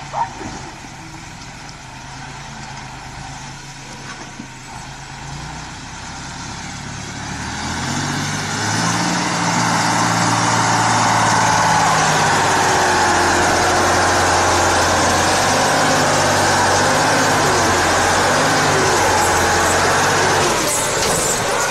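Engine of a heavy off-road truck working under load, its pitch stepping up and down as it is revved. From about eight seconds in it grows louder, joined by a rushing, splashing noise as the truck ploughs through water flowing across the road.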